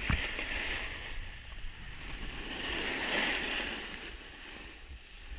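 Edges of skis or a snowboard hissing and scraping across packed, groomed snow on a downhill run, the hiss swelling twice as the turns load up. A low rumble of wind on the microphone runs underneath.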